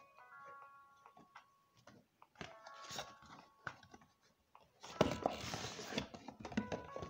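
Paper manual and cardboard watch box being handled: soft rustles and light taps, then a loud scraping rustle for about a second, five seconds in, as the box comes close to the microphone. Background music with ringing, sustained notes plays underneath.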